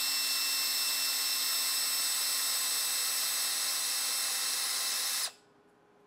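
Makita LXT cordless drill running at steady speed with its bit through a steel drill guide, boring a hole in a thin acrylic sheet: an even, high motor whine that cuts off sharply about five seconds in as the hole is finished.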